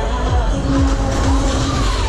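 Loud music from the Break Dance ride's sound system, heard over the steady rumble of the spinning ride.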